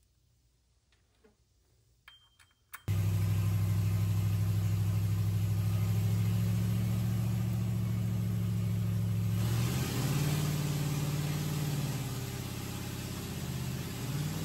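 Near silence with a few faint clicks for about the first three seconds, then the Rotrex-supercharged 5.3-litre V8 of a Chevrolet Tahoe cuts in suddenly, running loud and steady as heard from inside the cab. Its pitch wavers about two-thirds of the way in, and it starts to climb near the end as the engine accelerates.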